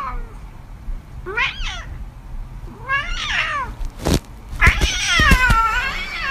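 A cat meowing: two short meows about a second and a half apart, then a longer, drawn-out meow that falls in pitch near the end. A few sharp knocks come around the start of the long meow.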